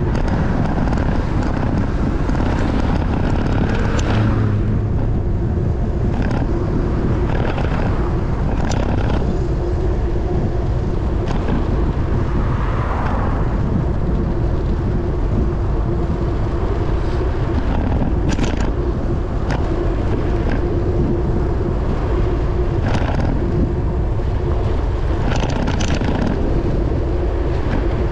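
Wind on the microphone and road noise from a bicycle riding along a road: a steady low rush with a faint hum, and scattered short ticks and rattles.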